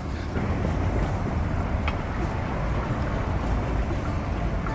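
Outdoor city street ambience: a steady low rumble and hiss with no voices close by, and a faint click about two seconds in.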